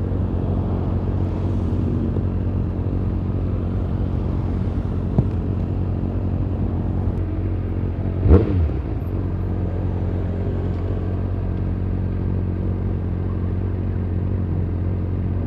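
Honda CB600F Hornet inline-four with an SC-Project exhaust idling steadily, with one quick throttle blip that rises and falls back about eight seconds in.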